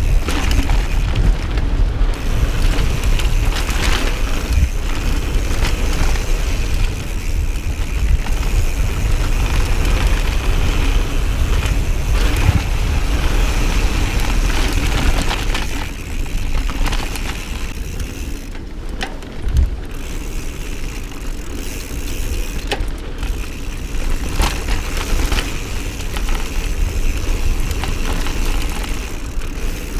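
Mountain bike ridden fast down a dirt trail: continuous tyre roar and rumble over the ground, with scattered knocks and rattles from the bike over bumps and landings, and wind rushing past. It eases off for a few seconds in the middle.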